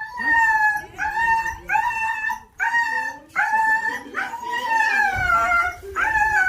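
Trapped desi (Indian street) dog crying out in distress, a string of high, drawn-out whining howls about one a second, with a longer cry that slides down in pitch near the end.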